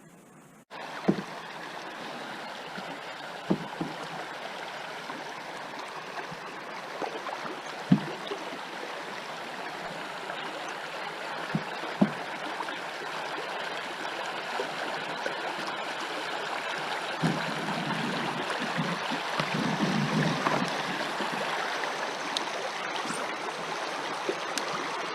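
Steady rush of current flowing through a slough, with a few light knocks against the boat here and there.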